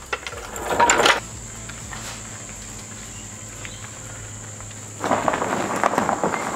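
A short scuffing noise, then a quiet stretch with a low steady hum, then footsteps crunching on gravel from about five seconds in.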